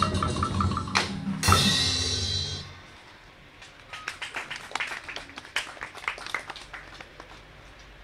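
Drum-led percussion music of the water puppet show, with rapid ticking strokes, ends in a crash about a second and a half in that rings out and dies away. Then comes quiet scattered clapping.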